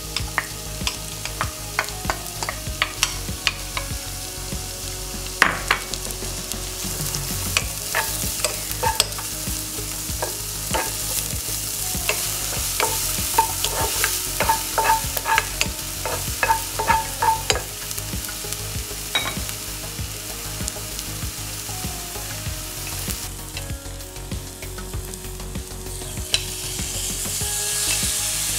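Chopped onion and green onion sizzling in oil in a nonstick frying pan, stirred with a wooden spatula that knocks and scrapes against the pan. There is a quick run of taps in the middle, and the sizzle gets louder near the end.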